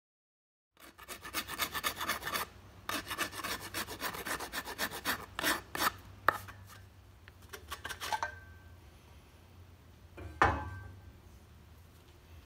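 Hand file rasping across a wooden branch handle in quick back-and-forth strokes, pausing briefly once, until about two-thirds of the way through. Later a single sharp knock with a short ring is the loudest sound.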